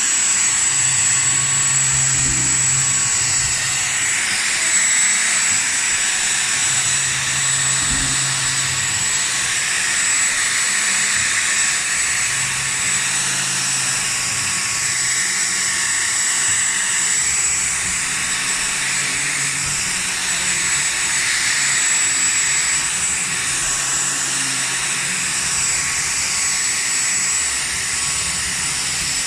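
Dyson vacuum cleaner running steadily: a loud rushing hiss with a constant high-pitched motor whine.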